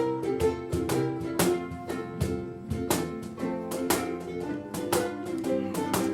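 Ukulele ensemble playing a tune live, with strummed chords and plucked notes ringing over sustained held tones.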